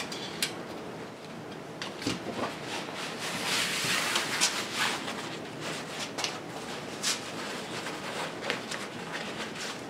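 Rustling and sliding of a car headliner's fabric as it is handled and pulled straight over a cardboard box, with a few light clicks and taps mixed in.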